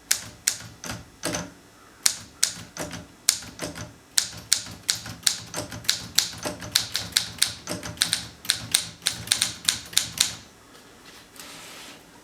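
Olympia typewriter being typed on: sharp key strikes at an uneven pace, quickening in the second half, then stopping about ten seconds in, followed by a faint rasp near the end.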